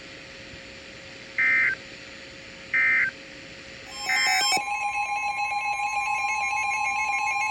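Emergency Alert System data tones on NOAA Weather Radio: three short, identical bursts of screeching digital SAME code about a second and a half apart. They mark the end of the broadcast message. About four seconds in, a steady electronic alert tone starts with a rapid, ringing trill over it, signalling the next warning.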